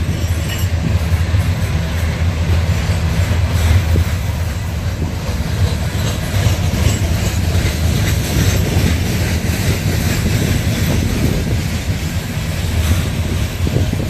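Loaded coal hopper cars of a freight train rolling past: a steady deep rumble of steel wheels on rail, with faint clicking.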